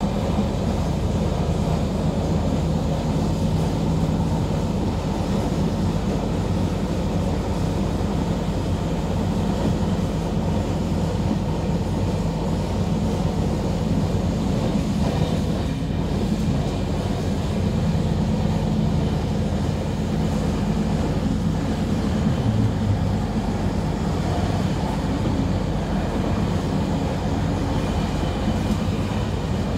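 Regional passenger train running along single track, heard from inside the carriage: a steady low rumble of wheels and running gear.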